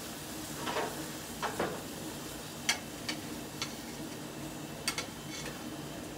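Metal grilling utensils scraping and clicking against a barbecue grill grate while burgers are tended: two scraping swishes in the first two seconds, then several sharp clicks, over a steady low hiss.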